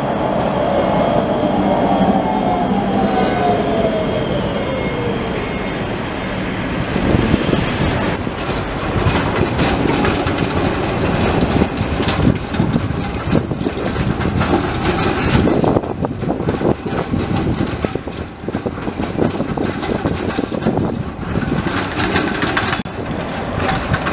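Prague trams running on street track. First a Škoda 14T low-floor tram passes with a motor whine that falls steadily in pitch. Then Škoda 15T trams cross a junction with wheels knocking and squealing on the rails, amid street noise.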